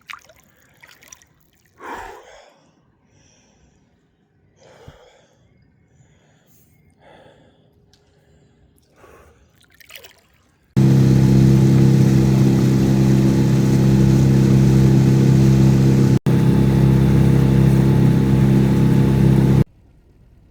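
A few short gasps and splashes of water while bathing in a river. About eleven seconds in, a loud boat engine starts running at a steady pitch, breaks off for an instant, and cuts off sharply about nine seconds later.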